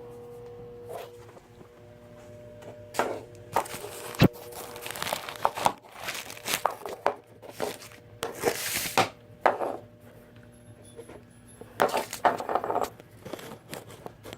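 Rustling and crinkling handling noises in irregular bursts, with a sharp knock about four seconds in, over a faint steady hum.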